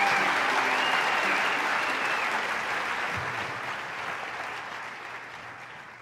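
Audience applauding, loud at first and fading away steadily over several seconds.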